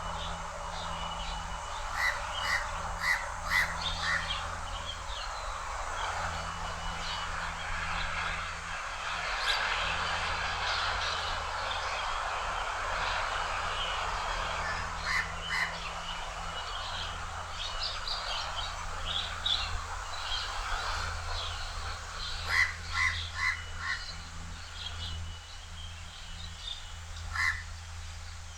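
House crow calling: harsh, repetitive calls in short runs of up to four, the runs several seconds apart, over a steady outdoor background hiss.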